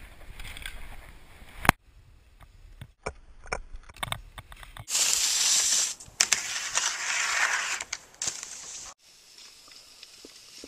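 Skis sliding and scraping over snow in several short, abruptly cut stretches. The loudest scraping hiss runs from about five to nine seconds in, with one sharp knock just under two seconds in.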